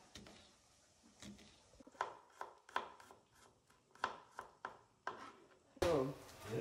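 A knife being struck and worked into a tin can's lid to open it without a can opener: a series of short, sharp taps, two or three a second, then a louder, longer sound near the end.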